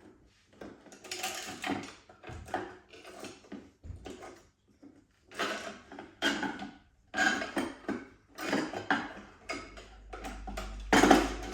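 Parts of a vintage beer pump being worked loose by hand: an irregular run of clicks, scrapes and rattles, with a louder clatter near the end as the stuck part comes out.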